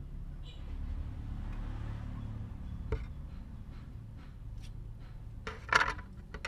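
Hand shears cutting thin brass sheet, with small snips and clicks as the blades close. Near the end the cut-off brass strip drops onto the concrete bench with a short metallic clatter, the loudest sound here. A low steady rumble lies underneath.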